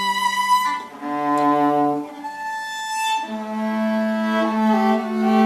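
Viola played with a bow: a slow melody of long held notes, a few changes early and then one long note held from about the middle, at times two notes sounding together.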